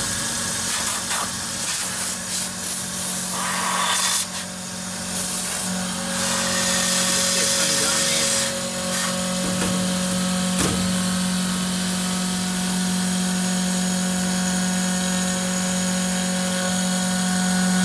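CNC milling machine cutting a cast metal turbo swirl adapter under coolant spray. A steady spindle tone runs throughout, and rough cutting noise comes and goes during the first few seconds.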